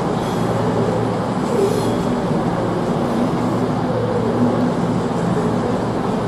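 Trains moving through a covered station: a Virgin Trains Class 390 Pendolino electric train pulling away on the rails, heard as a steady rumble with a low hum.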